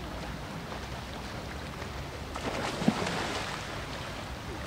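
Pool water sloshing and lapping, swelling to a louder splash a little past the middle.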